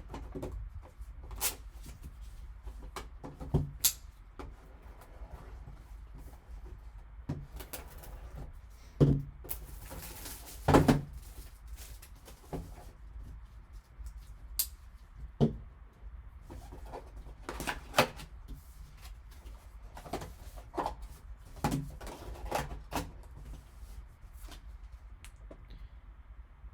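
A sealed trading-card box being unwrapped and opened by hand: scattered short crinkles, clicks and taps of plastic wrap, cardboard and a card holder, with a couple of louder knocks partway through.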